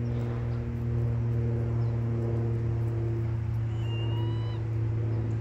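A steady low mechanical hum with a few fainter overtones, unchanging throughout, and a short high whistled call about four seconds in.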